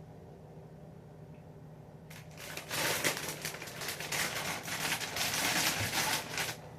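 Packaging crinkling as it is handled, a dense crackly rustle that starts a little under three seconds in and lasts about four seconds.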